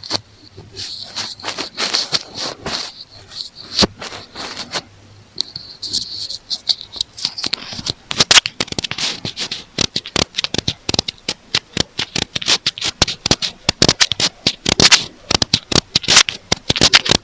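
Earphone microphone being scratched and tapped for ear-cleaning ASMR: a dense run of sharp clicks and scratchy rustles, sparser at first and coming thick and fast from about halfway through.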